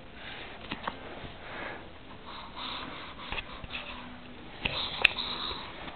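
Charcoal pencil scratching across sketch paper in a run of short strokes, with a few sharp clicks, the loudest about five seconds in.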